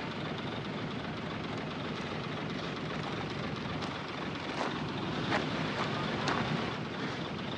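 Heavy diesel earthmoving machinery running steadily, with a few sharp metallic clanks in the second half.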